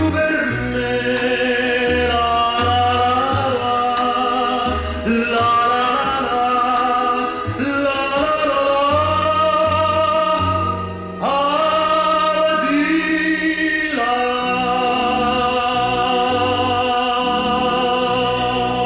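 Male tenor singing an Italian ballad over violins, holding long notes with vibrato. About 14 seconds in he settles into one long sustained note.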